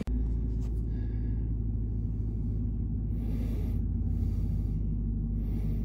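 A vehicle engine idling with a steady low rumble and hum, with three brief hisses in the second half.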